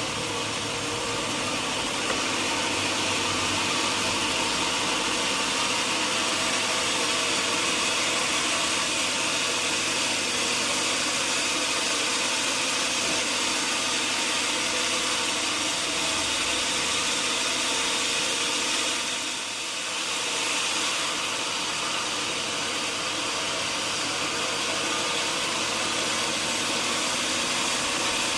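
Sawmill machinery running steadily with a dense, hissing whir, dipping briefly about two-thirds of the way through.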